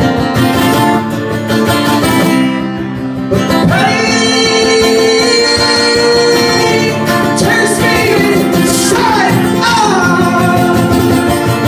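Acoustic guitar strummed while a man sings long held notes, some sliding down in pitch.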